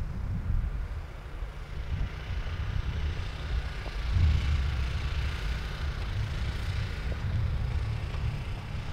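Wind buffeting the microphone: a low, irregular rumble that gusts louder about four seconds in, over a steady hiss.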